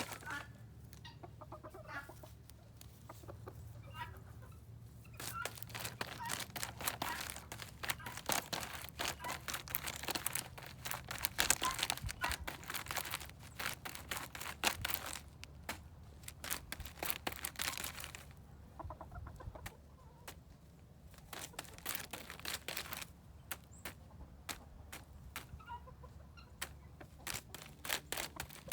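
Bantam rooster pecking rapidly at something that snaps like bubble wrap, giving long runs of sharp clicks and pops that pause now and then, with a few soft clucks between.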